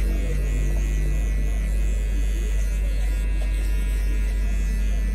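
Electric hair clippers fitted with a 1.5 guard, lever closed, buzzing steadily as they cut short hair at the side of the head.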